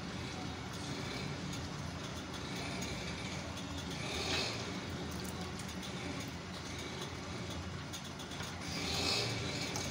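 A yellow silicone spatula stirring thickening custard in a nonstick pan over a steady low hum, with two brighter scraping swishes about four and nine seconds in.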